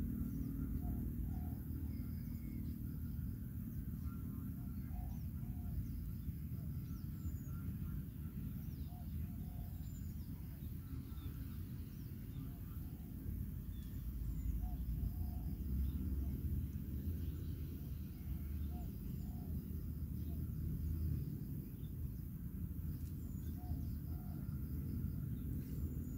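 Wind rumbling on the microphone, with small birds chirping faintly and intermittently over an open rice paddy.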